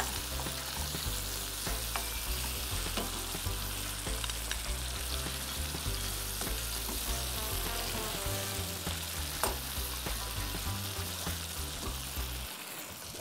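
Food sizzling and frying in a pan on a gas hob while it is stirred with a metal spoon.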